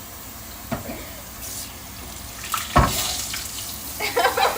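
Water running from a kitchen tap into a sink, a steady rush, with one sharp knock near the middle.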